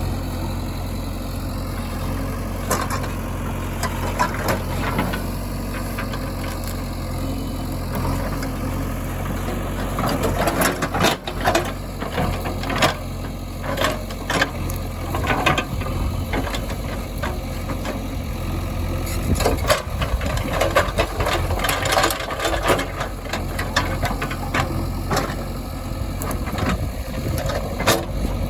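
Diesel engines of a backhoe loader and tractors running steadily at low revs. From about ten seconds in, irregular knocks and clanks come on top of the engines.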